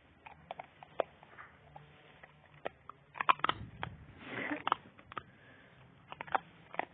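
Dog chewing walnuts in the shell: irregular sharp cracks and crunches of the shells breaking, loudest about three seconds in.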